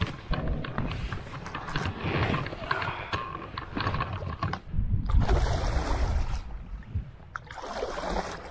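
Gumotex Rush 2 inflatable kayak being handled and launched: a run of knocks and rubbing from the boat and gear, with two louder rushes of noise about five and eight seconds in.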